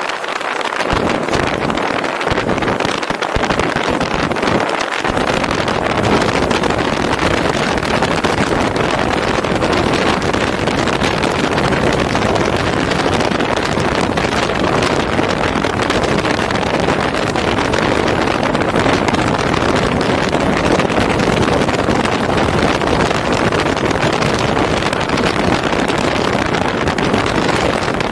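A car driving, heard as a steady rush of wind on the microphone mixed with road noise, with no distinct engine note.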